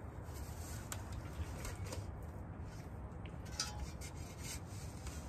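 Metal garden spade scraping and cutting into soil in short, irregular strokes, with two sharper scrapes, one about a second and a half in and one a little past halfway, over a steady low rumble.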